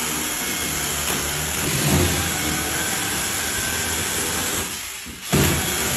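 Handheld cordless power tool running steadily against a wall, stopping briefly near the end and starting again.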